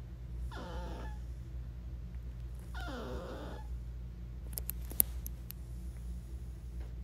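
Yorkshire terrier whining twice, each a short cry falling in pitch, about half a second in and again about three seconds in. A few sharp clicks follow, the loudest about five seconds in.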